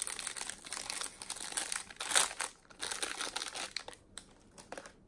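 A clear plastic bag crinkling as a small puzzle cube is unwrapped from it, in close crackly bursts for about four seconds, then a few light rustles before it stops.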